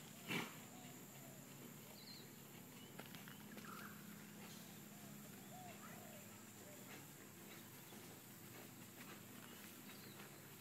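Near-quiet outdoor ambience: faint bird chirps and short calls through the middle, over a faint high steady whine. One short sharp knock sounds about half a second in.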